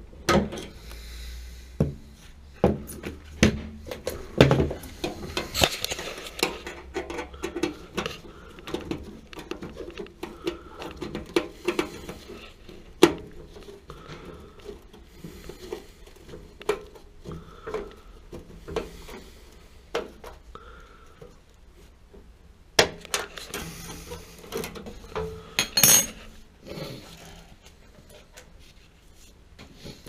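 Scattered metal clinks, knocks and rustling from hands and tools working on the sheet-metal base, burner access and gas line of a gas water heater, with several louder clanks.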